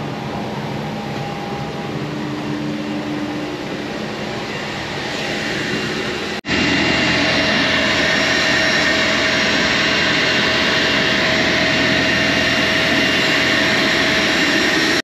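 Steady aircraft noise: a quieter even ventilation hum inside a Boeing 737 cabin, then, after a cut about six seconds in, a louder steady rush with a high turbine whine from the airport apron.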